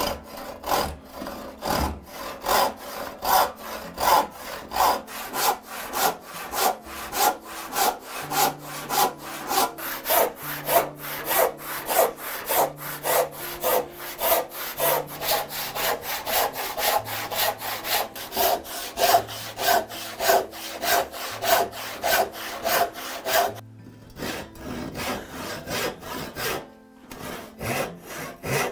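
Hand saw cutting through wood in steady back-and-forth strokes, about two a second, with two brief breaks near the end.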